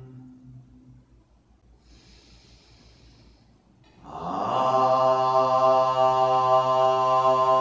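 A single voice chanting a mantra. A long held note fades out, a breath is drawn in, and about four seconds in a new long chanted note starts and holds on one steady pitch.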